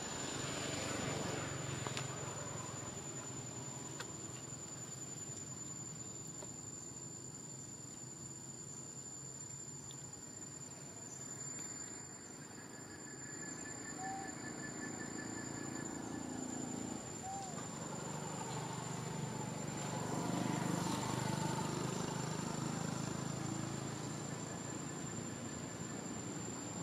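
Outdoor ambience: a steady high-pitched insect drone over a low background rumble, with a few faint short chirps.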